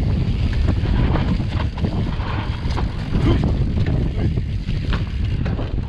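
Wind buffeting the microphone over a steady rumble, with many short knocks and rattles from a mountain bike riding a rough trail.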